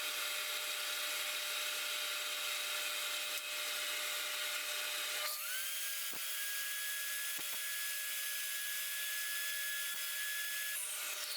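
Power tool running steadily on wood. About halfway through, a steady high whine comes in and holds until shortly before the end.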